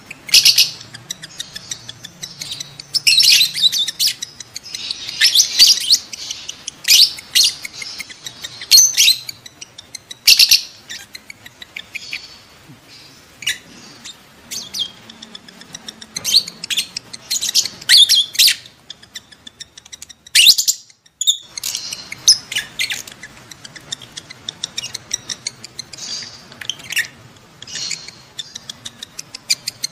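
Lovebirds in breeding condition calling: rapid, high-pitched chirps and squeaks in irregular clusters, with a brief pause about twenty seconds in. This is the mating-season calling that keepers play to bring their own lovebirds into breeding condition.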